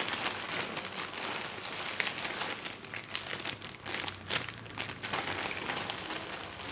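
Plastic packaging crinkling and crackling as it is handled, with many small crackles throughout.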